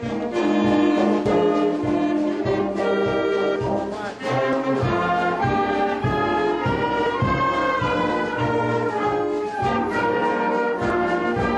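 Music played on brass instruments, with held and changing notes over a steady pulse.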